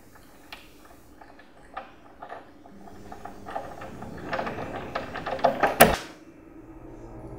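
Knocking on a door, scattered at first, then faster and louder, ending in one loud bang, with a low hum rising underneath partway through.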